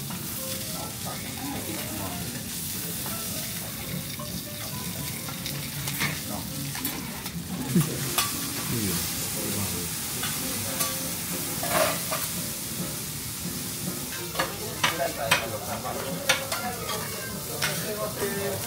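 Beef sizzling on a hot teppanyaki griddle, with sharp metal clicks of spatulas striking the plate now and then, more often in the second half.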